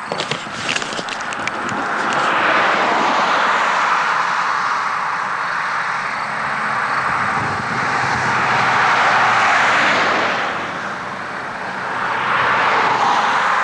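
Radio-control model airplane engine in flight, its sound swelling and fading several times as the plane passes back and forth. A few clicks in the first second or so.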